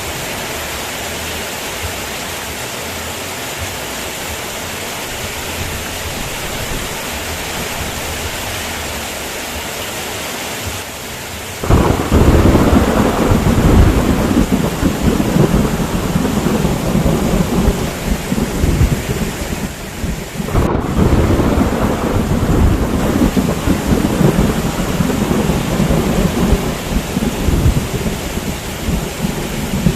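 Steady heavy rain hiss, then about eleven seconds in a loud, deep thunder rumble cuts in suddenly and rolls on with surges over the rain, with a short break about twenty seconds in.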